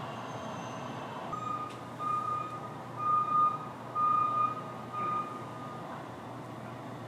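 A vehicle's reversing alarm beeping five times, about once a second, on one steady pitch, over a steady background hum of city noise.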